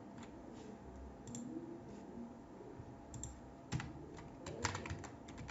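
Faint, scattered keystrokes on a computer keyboard, a few isolated clicks at first and then coming in quicker clusters in the last couple of seconds.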